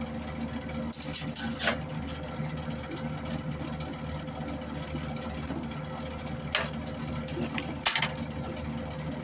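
Wire-feed motor of a SIP MIG welder whirring steadily as it feeds wire with the gas disconnected. A few sharp clicks and knocks come over it, the loudest about eight seconds in.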